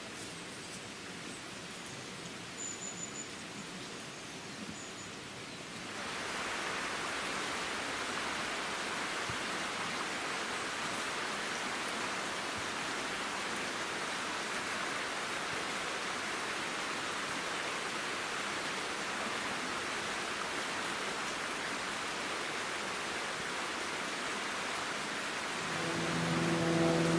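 Steady rushing of a fast-flowing woodland stream, coming in suddenly about six seconds in. Before it there is only a quiet outdoor background with a few faint high chirps, and music with held notes fades in near the end.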